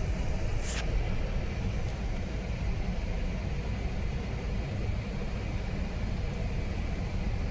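Steady low vehicle rumble, with a single short click about a second in.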